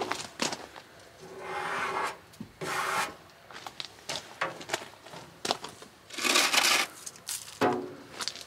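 Footsteps crunching on gravel: irregular scraping, crunching noises with a few sharp clicks, and longer scrapes about two seconds in and again around six to seven seconds in.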